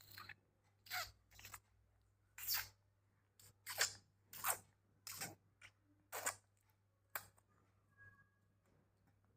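A baby making a string of short, shrill, hissy squeals, about a dozen of them at irregular intervals, each well under half a second long.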